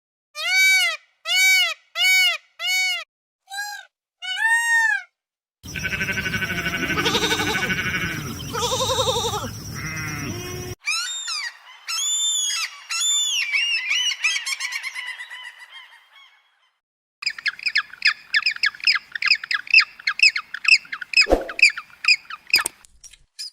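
Bird calls from several clips in succession: first about six short arched calls, one after another, then a denser stretch of overlapping calls, then rapid chirping for the last several seconds.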